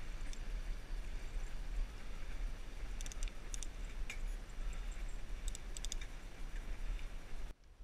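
Wind rushing over an action camera's microphone during a bicycle ride, with a steady road-noise hiss. Twice in the middle there are short runs of light high clicking. The sound drops out briefly near the end.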